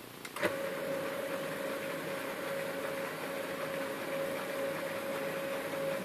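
HP LaserJet 1320 laser printer running its power-on cycle: a click about half a second in, then a steady mechanical hum with one constant tone that cuts off near the end. The laser scanner motor, its spindle freshly oiled with fuser oil, runs without the screaming noise it had, so the fault is cleared.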